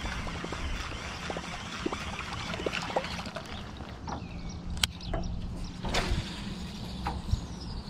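Lake water lapping against a fishing boat's hull over a steady low hum, with scattered clicks and knocks from a baitcasting rod and reel being handled. Two sharper knocks come about five and six seconds in, and a faint falling whistle near the end as a cast goes out.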